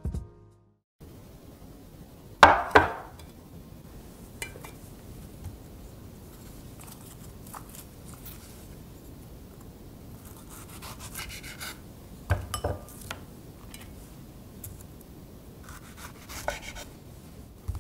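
Small kitchen knife cutting strawberries on a wooden cutting board: sparse light taps and knocks of the blade and fruit on the wood. A louder double clatter, as of something set down on the board, comes about two and a half seconds in.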